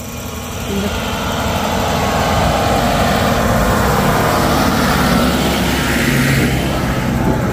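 Car engine running close by on a hill road, growing louder over the first two seconds and then holding steady.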